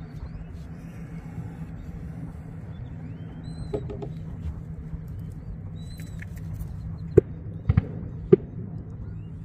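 Wind on the microphone, a steady low rumble, with a few faint short high chirps in the middle and three sharp knocks near the end.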